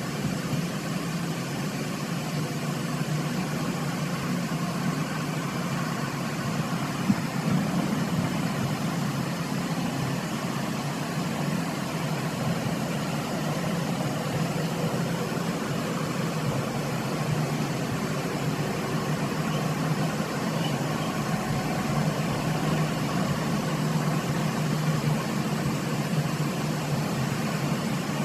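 A steady low mechanical hum with a single sharp click about seven seconds in.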